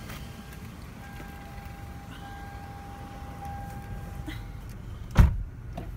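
Car engine idling with a steady low rumble, heard from inside the cabin. A steady pitched electronic tone sounds for about three and a half seconds in the middle. A loud thump comes about five seconds in.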